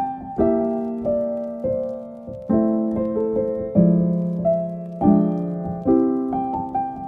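Background piano music: a slow piece of chords and single notes, each struck and left to die away.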